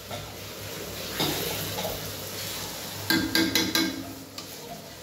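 Tomatoes and onion masala sizzling in a steel kadai, with a short swell of hiss about a second in, then a quick run of metal clinks from a spatula against the pan about three seconds in.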